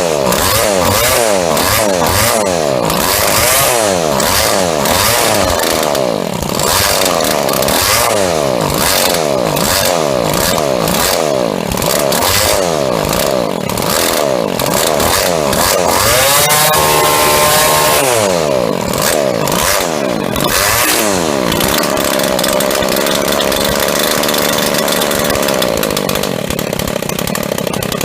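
Husqvarna 24C string trimmer's small two-stroke engine revved up and down over and over, then held at a steady speed for the last several seconds. Its muffler is suspected of being loose.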